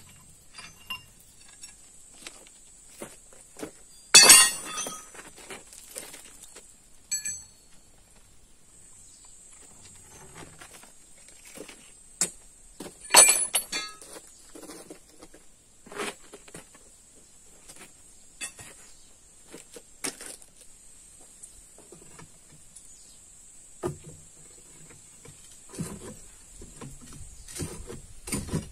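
Scattered clinks and knocks of steel tools and stone being worked by hand. Two sharp, ringing strikes stand out, one about four seconds in and one about thirteen seconds in.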